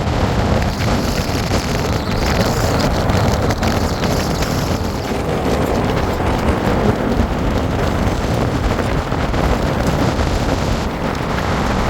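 Loud, steady rushing noise with a low, slightly varying rumble.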